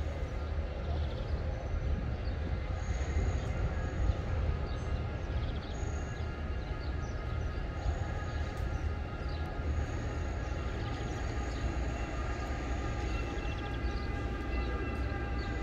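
Steady low mechanical rumble with several constant whining tones over it and brief high squeals that come and go.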